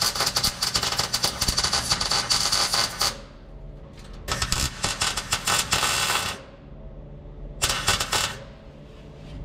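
MIG welder crackling as it lays beads on new sheet steel. It goes in three spells with short pauses between them, the last one brief.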